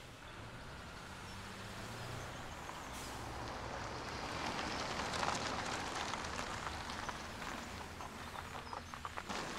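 A car driving along a tarmac street toward the listener, its tyre and engine noise swelling over the first few seconds and then easing off, with a few short clicks near the end.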